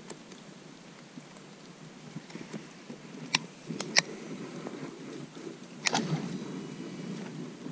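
Footsteps and handling noise as someone moves with the camera, a steady low rustle, with three sharp clicks or knocks in the second half.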